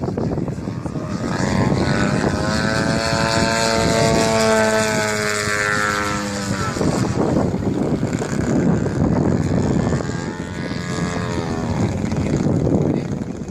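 Yak 54 radio-controlled aerobatic model plane with a 120 cc engine flying past, its propeller and engine note coming and going twice. The note falls in pitch as the plane passes, about six seconds in.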